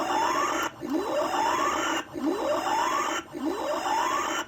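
Williams Pinbot pinball machine's sound board playing the same electronic tone in switch test, repeating about every 1.2 seconds: a short rising swoop over a steady buzz, with a brief gap between repeats.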